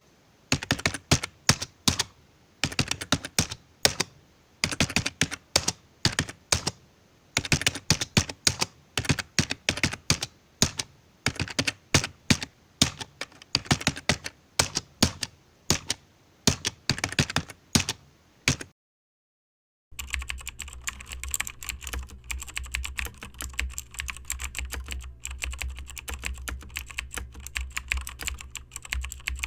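Typing on a computer keyboard: sharp key clicks in quick runs separated by short pauses. After a brief silence, a second stretch of faster, denser, quieter typing over a low hum.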